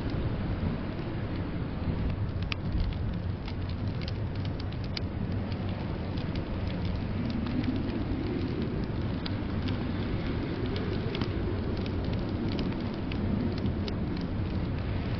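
Wood fire crackling, with scattered sharp pops, over a steady low rumble of blizzard wind that swells about halfway through.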